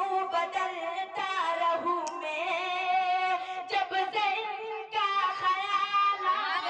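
A man singing a naat, an Urdu devotional poem, into a handheld microphone: long held notes with wavering, ornamented pitch, broken by short breaths.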